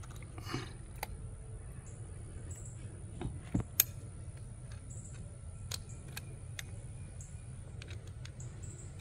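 Scattered light clicks and taps of a metal worm-drive hose clamp and a screwdriver against a hose mender's metal fitting as they are handled, the sharpest a little before four seconds in, over a low steady hum.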